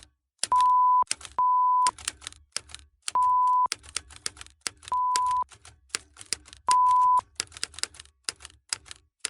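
Morse code tones: five steady beeps of about 1 kHz, each about half a second long and spaced unevenly, with rapid mechanical clicking throughout.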